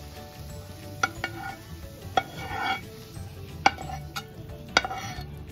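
Metal spatula scraping sautéed onion and capsicum out of a nonstick pan onto a plate, with a handful of sharp knocks as it strikes the pan and plate.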